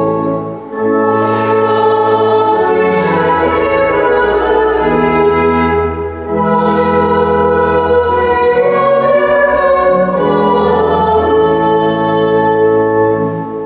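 Voices singing a hymn with organ accompaniment, in long held chords; the music dies away near the end.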